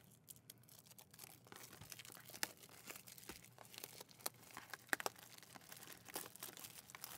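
Faint crackling and tearing of plastic shrink wrap being pulled off a Pokémon card booster box, with scattered light clicks of the cardboard box being handled.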